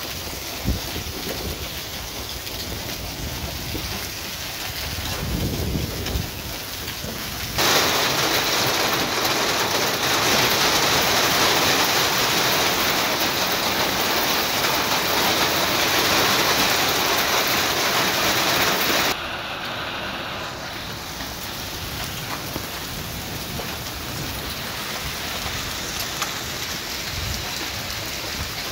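Hail and heavy rain coming down in a steady hiss. About eight seconds in, the hiss turns much louder and brighter for about eleven seconds, then drops back abruptly to the softer downpour.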